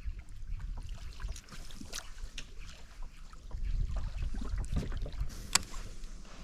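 Water and handling noise aboard a small boat: a low rumble with scattered knocks, louder for a couple of seconds past the middle, and one sharp click about five and a half seconds in.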